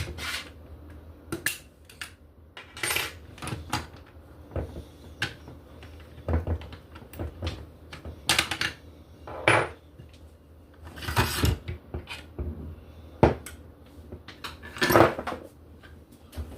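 Metal parts of a Mossberg 500A pump shotgun clinking and clattering as the gun is taken apart: a string of separate clanks and rattles, some ringing briefly.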